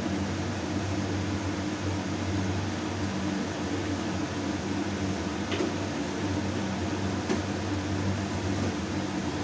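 Steady mechanical hum of a fan running, with a couple of light clicks about five and a half and seven seconds in.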